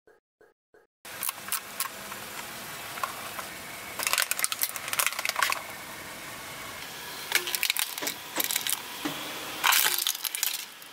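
A few short beeps in the first second, then the sharp clicks and cracks of a plastic toy camera being crushed under a car tyre, in clusters about four, seven and ten seconds in.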